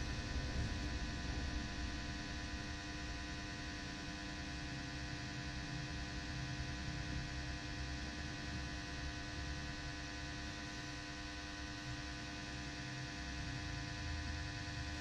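Steady electrical buzz: an even hum with a buzzing edge that holds unchanged throughout.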